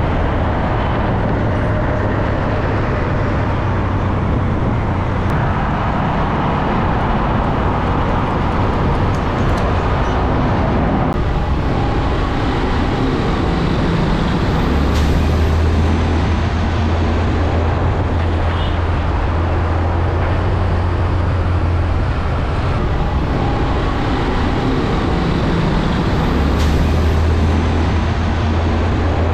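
Heavy road traffic passing close by: diesel semi-trucks hauling shipping containers, with engine noise and tyre rumble. A strong low engine drone comes up about halfway through and again near the end.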